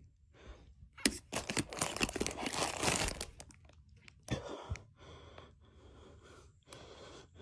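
Crackling, rustling handling noise as fingers push a LEGO Mario figure across a fabric couch, densest from about one to three seconds in, with a sharp click a little after four seconds.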